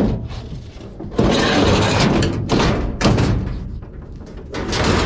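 Sheet-metal dryer panels being shifted and knocked about, with two loud bangs, about a second in and about three seconds in, and clattering and scraping of the metal between them.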